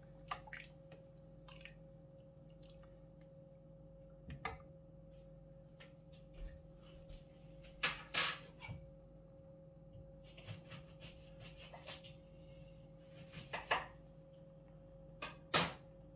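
Quiet kitchen with a steady hum at one pitch, broken by a few short clinks and knocks of kitchen utensils, the loudest about 8 seconds in and near the end.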